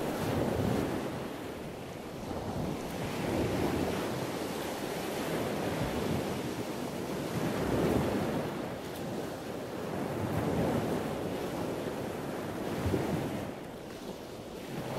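Sea waves washing in, swelling and fading every few seconds, with wind blowing across the microphone.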